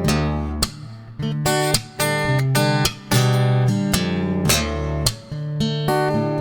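Background music led by strummed acoustic guitar, with chords struck every second or so.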